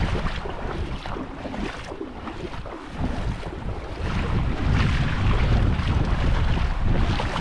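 Wind buffeting the microphone in gusts over the gentle wash of small waves in shallow sea water, easing a couple of seconds in and picking up again after about three seconds.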